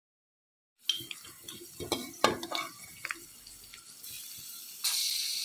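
A metal spoon stirring and scraping kanthari chillies, garlic and curry leaves as they fry in sesame oil in a pan, with light clicks and taps of the spoon on the pan, starting after about a second of silence. A steady hiss comes up near the end.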